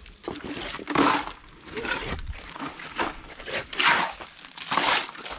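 Gritty scraping strokes of a tool working through wet concrete mix, about one a second.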